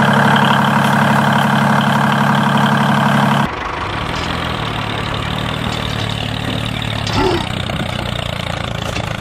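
Tractor engine running steadily with a fast rhythmic chug. About three and a half seconds in, the sound switches abruptly to a lower, quieter steady engine run.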